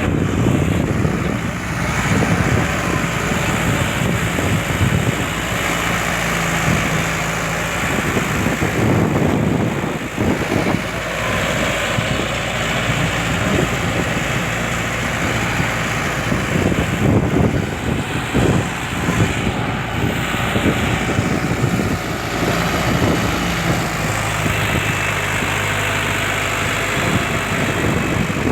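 Indo Farm 3055DI 4x4 tractor's diesel engine running steadily, its pitch shifting up and down at times.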